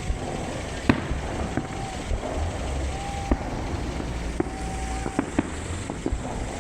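Fireworks bursting in a display: a string of sharp bangs at uneven spacing. Several are preceded by a short steady whistle of about half a second, over a low rumble.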